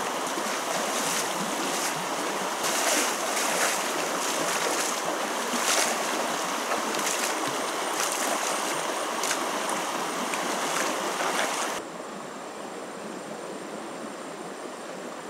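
Water splashing and sloshing as a person wades through a shallow stream and beats its surface with a bamboo pole, with repeated sharper splashes. About 12 seconds in it drops suddenly to the quieter, steady rush of flowing stream water, with a faint steady high whine.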